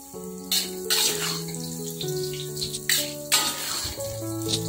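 Hot cooking oil pouring and dripping from a slotted metal strainer back into a wok as fried tempe and tofu are lifted out to drain, in short irregular hissing surges, over background music with held notes.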